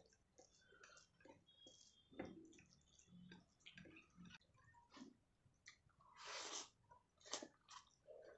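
Quiet, sticky squelches and small clicks of cooked rice being squeezed and mixed with fish curry by hand on a plate, with soft chewing mouth sounds. A brief louder rushing noise comes about six seconds in.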